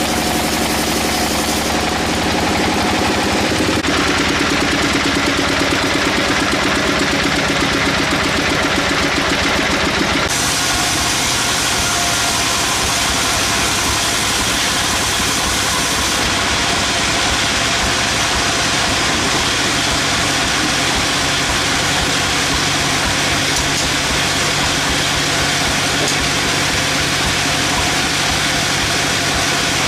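Engine-driven sawmill machinery running steadily, its sound changing abruptly a few times.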